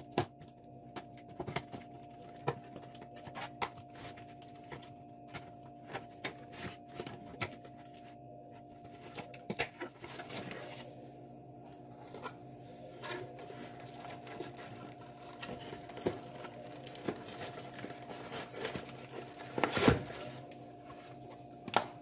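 Cardboard box being unpacked by hand: scratching and ticking as the top is cut open with a pointed tool, then flaps and packing handled, with louder crackling of paper near the end. A faint steady hum runs underneath.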